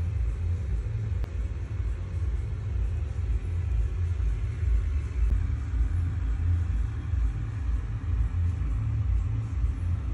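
Low, uneven rumble with a faint hiss above it.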